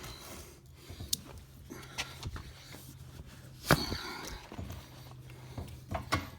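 Scattered clicks and knocks of hands handling tools and equipment, with footsteps and one louder knock just under four seconds in, over a faint steady low hum.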